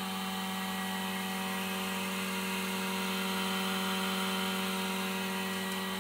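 Vacuum pump running with a steady, unchanging hum and hiss, holding the vacuum that draws resin through the carbon fibre under the bag during resin infusion.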